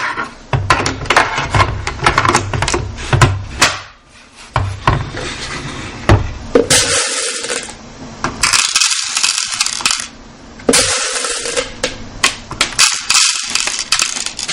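Well P90 airsoft electric gun (AEG) firing four bursts of a second or two each in the second half, a rapid mechanical rattle over a steady motor whine. Before them comes a run of sharp clicks and knocks.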